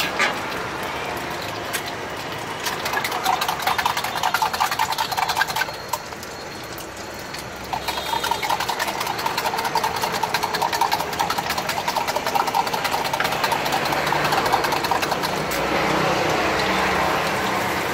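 Rapid metallic clattering of steel cooking utensils at a street-food griddle, in two long runs, over a low background of boiled eggs frying in oil on the griddle.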